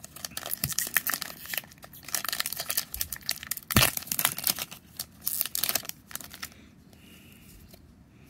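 A foil trading-card booster pack being torn open and its wrapper crinkled: a dense run of crackles and rips for about six seconds, with one sharp snap a little before four seconds in. It then goes much quieter near the end.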